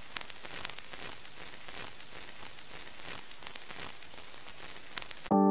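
Steady crackle and hiss with scattered clicks, like record surface noise, opening a pop track. Just before the end a much louder sustained keyboard chord comes in suddenly.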